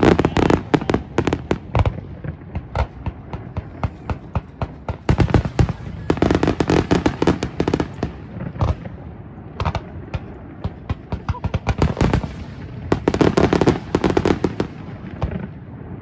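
Aerial fireworks bursting: sharp bangs and crackling in three dense volleys, near the start, about five to seven seconds in, and again about twelve to fourteen seconds in, with scattered single bangs between them.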